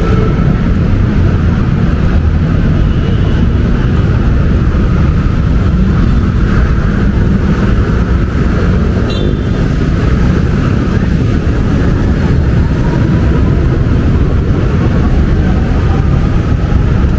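Busy city road traffic passing by: a steady, loud low rumble of vehicle engines and tyres.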